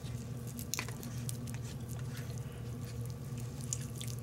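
Quiet eating sounds: a fork working a roasted potato on a plate, with a few soft clicks of the fork and chewing, over a steady low hum.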